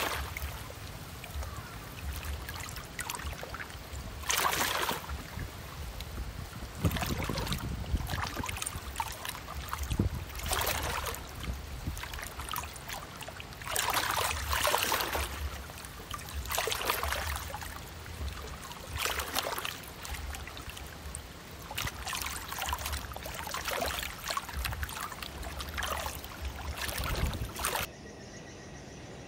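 Water splashing in surges every two to three seconds, like small waves breaking on a riverbank, over a low rumble; it stops shortly before the end.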